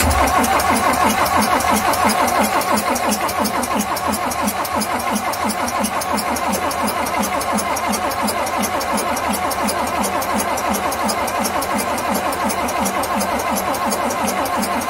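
Inboard marine diesel engine being cranked over by its starter after the glow plugs have been preheated: a loud, even, fast rhythmic churn that runs steadily and cuts off suddenly near the end.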